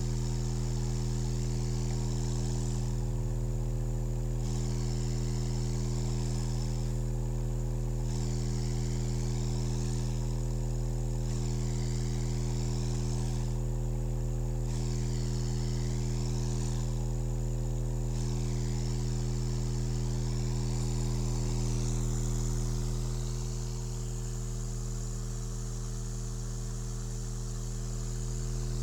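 Canston R50 speaker playing a steady, deep bass drone, with air rushing out of the back of the speaker as wind noise at the low notes. The drone eases a little about three-quarters of the way through.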